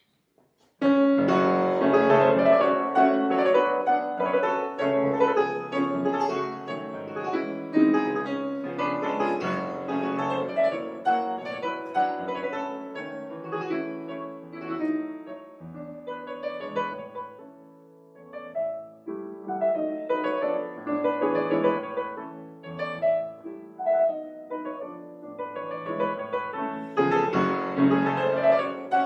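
Piano music, starting suddenly about a second in after near silence.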